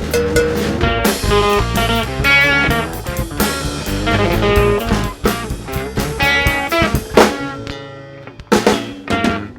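Band music with guitar and a drum kit, thinning out briefly near the end before a few strong drum hits.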